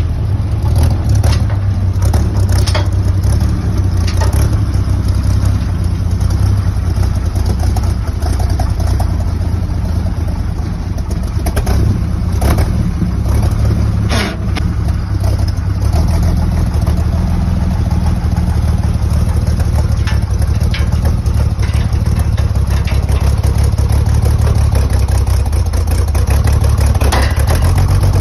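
Heavy old truck engine idling steadily, with a few scattered metallic clanks and knocks.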